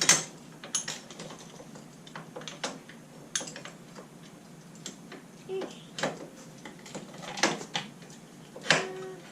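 Irregular light clicks and clinks of small metal tools and bolts being picked up and set down, about a dozen separate taps.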